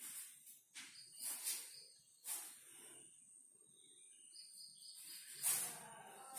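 Soft swishes and scuffs of a barefoot Kalaripayattu practitioner's footwork and body movement on a bare floor: several short bursts, the loudest about five and a half seconds in. A faint steady high whine runs underneath.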